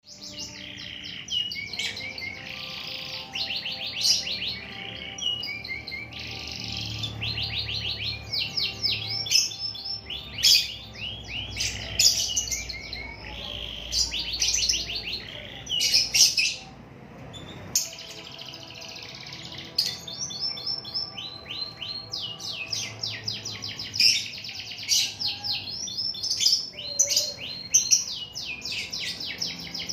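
Domestic canary in full song: long, continuous runs of rapid trills and chirps, broken by one short pause a little past halfway.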